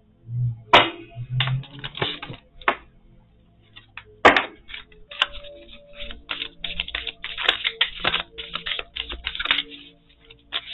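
A deck of tarot cards being shuffled by hand, a fast run of card flicks and riffles, with two sharp snaps as cards are laid or tapped down, about a second in and about four seconds in.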